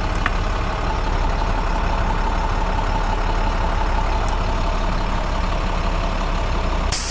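Flatbed tow truck's engine idling steadily, heard from inside the cab. Right at the end a short, sharp blast of compressed air from the newly installed air blow gun begins.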